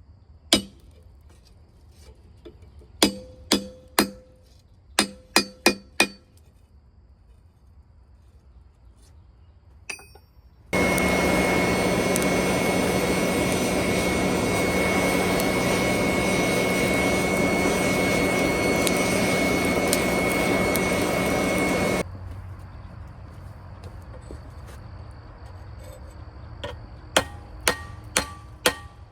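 Hammer blows on steel, about ten ringing strikes in quick groups, with a few more near the end. In between, a loud, steady machine roar with a constant high whine starts suddenly, runs about eleven seconds and cuts off abruptly.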